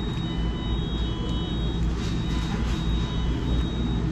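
Steady low rumble of vehicle engines, with faint thin high tones coming and going.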